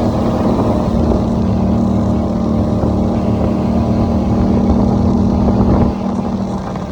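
Polaris ATV engine running steadily while riding, holding an even pitch, then getting quieter near the end.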